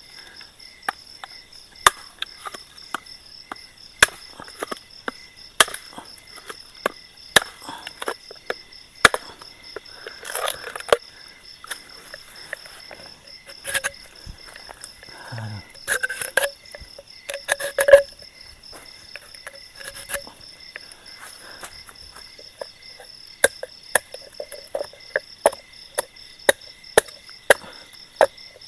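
Blade chopping into wood with sharp knocks, irregular and one to two seconds apart at first, then quicker, about two a second, near the end. A steady chorus of night insects trills underneath.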